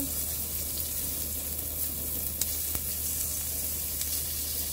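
Pork belly sizzling steadily in its fat on a round griddle pan, with a couple of faint clicks about two and a half seconds in.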